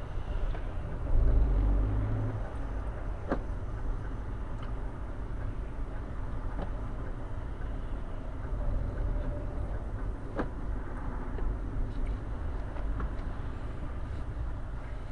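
Car cabin noise while driving: a steady low rumble of engine and tyres on the road. It swells louder for a moment about a second in, with a few faint clicks or knocks along the way.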